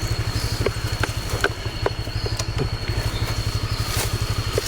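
Small motorbike engine running at low speed with a fast, steady low pulse as it climbs a rough dirt track. A thin, steady high whine sits over it, with scattered light ticks.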